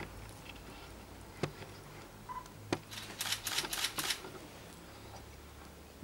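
Two single sharp clicks, a brief short beep, then about a second of rapid clicking and clattering.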